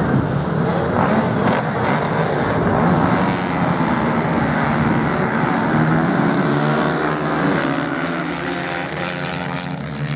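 Several motocross bikes racing on a sand beach track, engines revving hard in a pack. From about halfway through, a steadier single engine note stands out.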